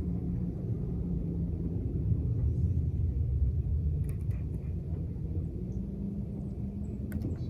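A boat's motor running: a steady low rumble with a constant hum, and a few light clicks about four seconds in and near the end.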